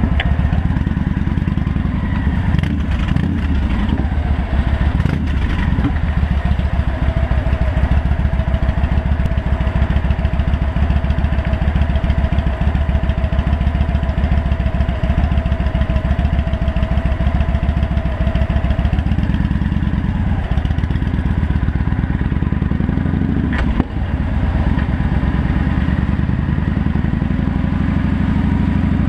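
Royal Enfield Bullet's single-cylinder engine running as the motorcycle rides through traffic, with a fast, steady low pulsing from the exhaust.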